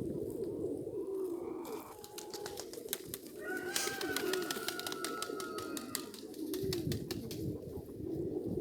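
Flock of Nikolaev pigeons cooing, many low coos overlapping throughout. From about three and a half seconds in, a higher drawn-out call from another bird slowly falls in pitch and ends around six seconds, over a spell of fast clicking.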